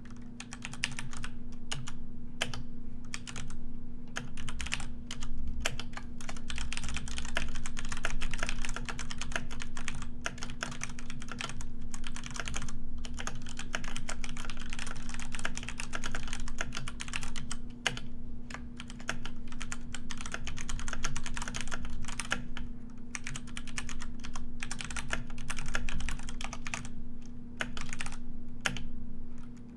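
Computer keyboard being typed on in fast, continuous runs of key clicks, with short pauses every few seconds, over a faint steady low hum.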